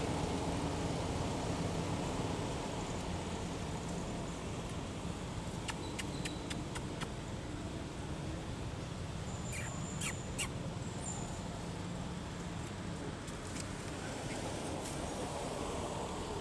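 Outdoor ambience: a steady background hiss and low hum, with a few sharp clicks in two clusters around the middle and brief high chirps, likely birds, about two-thirds of the way through.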